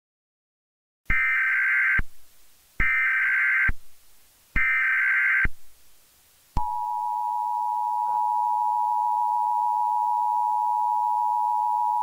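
Emergency Alert System broadcast tones: three short bursts of SAME digital header data, about a second each with short gaps, followed by the EAS attention signal, a steady two-tone beep of 853 and 960 Hz held for about five seconds.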